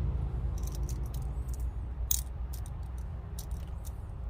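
Light clicks and clinks of small pocket screwdrivers with magnetic tips being handled, a dozen or so irregular taps with one sharper click about two seconds in, over a low steady rumble.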